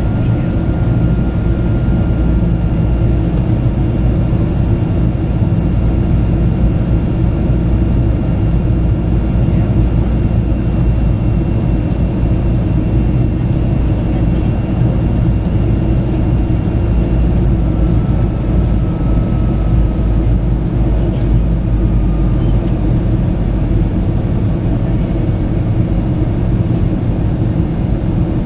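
Steady cabin noise inside a Boeing 737-800 in flight: the low drone of its CFM56 engines and the rush of air along the fuselage, with a faint high whine above it.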